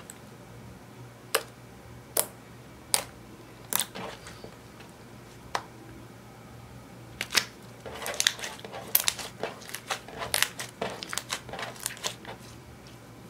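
Glossy purple slime, clear slime with eyeshadow mixed in, being squeezed and stretched by hand, giving sharp sticky pops and clicks as air pockets in it burst. A few spaced pops come first, then a dense run of crackling pops from about seven seconds in.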